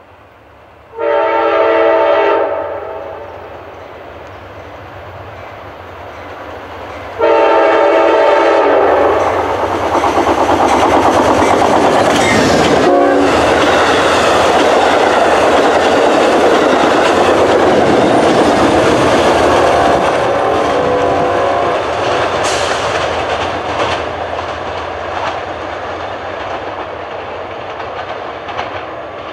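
An Amtrak Downeaster train led by a GE P42 locomotive blows its horn twice, a short blast about a second in and a longer one from about seven seconds. The train then passes close by at speed with loud wheel and rail noise, which slowly fades as the cars go by.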